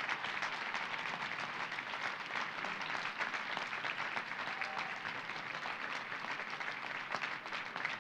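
A large audience applauding steadily, a dense, even clatter of many hands clapping.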